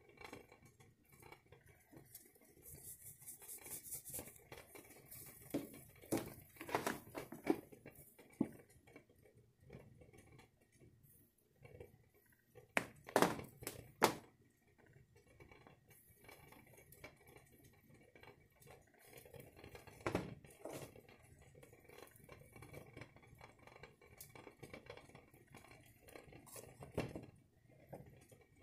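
Spice shakers and containers being handled over a bowl of raw chicken: a quick rattling shake a few seconds in, then scattered clinks and knocks of containers against the bowl, with a sharp pair of knocks about thirteen seconds in.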